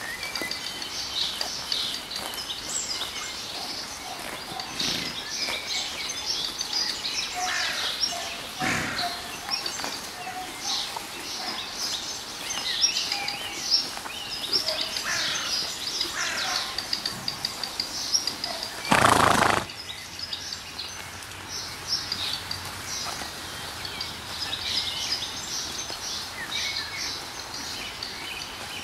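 Rural pasture ambience: many small birds chirping throughout. About two-thirds of the way through there is one loud, short blast of noise lasting under a second.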